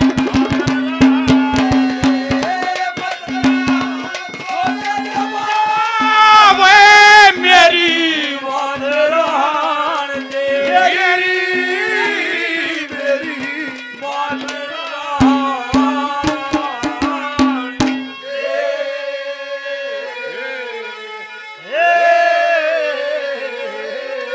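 Live Haryanvi ragni folk music: quick hand-drum strokes under a wavering melody line and a steady low drone, loudest about six to eight seconds in. The drumming mostly stops around eighteen seconds in while the melody carries on.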